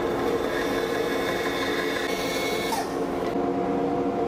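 A bandsaw cutting through a cherry board, with the blade's hiss over a steady machine hum. The cutting noise stops about three seconds in, and the hum goes on.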